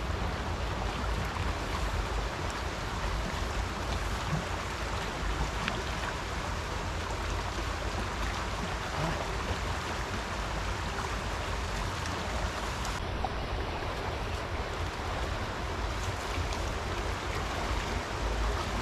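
Steady rush of a flowing river, an even wash of water noise with a low rumble beneath it.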